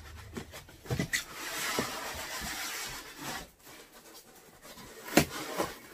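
Cardboard box and foam packing peanuts rustling and scraping as a heavy rock tumbler is worked up out of the box, with a few clicks and one sharp knock about five seconds in.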